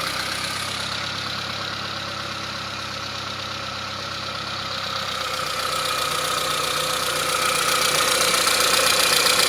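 The 1998 Saab 900 SE's electric fuel pump running on direct power while it is tested as the suspected faulty part: a steady mechanical whine that grows louder about halfway through.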